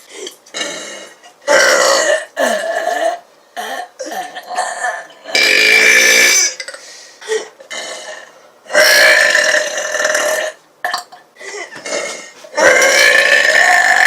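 A person belching over and over: a string of short burps with four long, loud belches among them, each about a second and a half.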